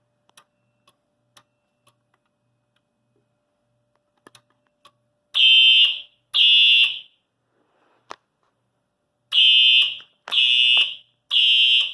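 Simplex fire alarm horn sounding in the code 3 pattern, set off from the detector. After a few faint clicks, two short loud blasts come about five seconds in, then three more a second apart near the end.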